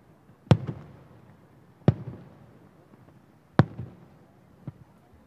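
Aerial firework shells bursting about a kilometre away: four sharp bangs, the last one fainter, each followed by a short echoing rumble.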